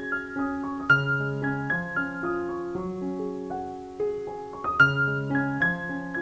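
Background music: a soft piano melody of single notes played over held lower notes.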